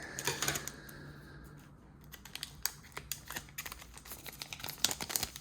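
Trading cards being handled and flicked through: a run of quick, light clicks and taps, with a busier cluster right at the start and more rapid clicking in the second half.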